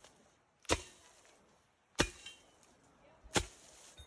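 A hand trail tool striking the ground three times, about 1.3 s apart, in sharp chopping blows. It is breaking up clumps of grass on the trail's raised berm edge so that water can run off.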